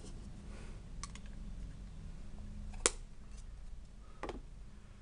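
Small hard-plastic clicks and knocks of stamping supplies being handled on a tabletop. There are three sharp clicks: about a second in, just before three seconds in (the loudest), and a little after four seconds in, over a faint low hum.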